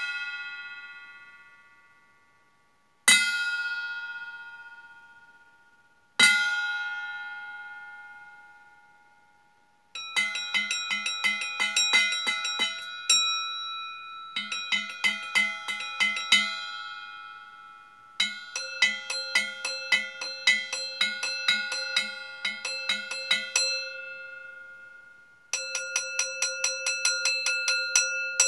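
Stainless steel bowls struck like singing bowls, ringing with several tones together. Three single strikes are each left to ring out and fade, then from about ten seconds in come runs of rapid strikes, about four a second, with short pauses between the runs.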